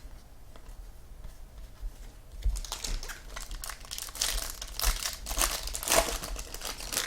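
Foil wrapper of a pack of football trading cards being torn open and crinkled. It starts about two and a half seconds in, after a quiet start.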